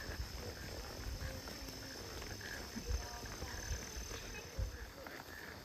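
Insects trilling steadily in a thin, high, unbroken tone, over an uneven low rumble from the moving microphone.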